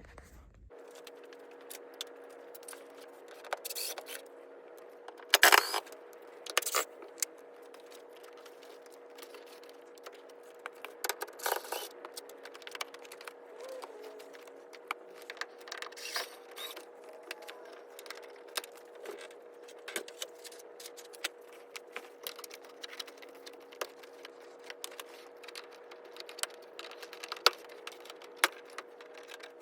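Interior plastic trim panels being pried and pulled off a car: irregular clicks, snaps and rattles of panels, clips and hand tools, with a sharp crack about five and a half seconds in. A steady faint hum runs underneath.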